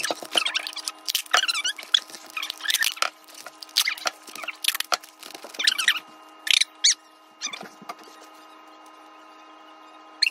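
Paper towels and napkins rustling and crinkling under hands, in quick irregular bursts that thin out after about five seconds and stop near the end. A steady hum runs underneath.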